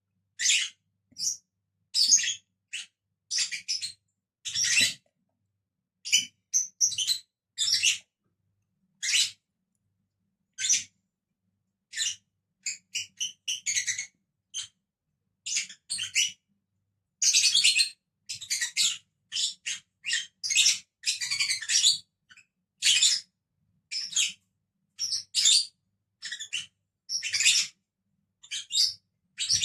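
Pet lovebirds chirping: short, shrill, high-pitched chirps in quick irregular runs, with brief pauses between.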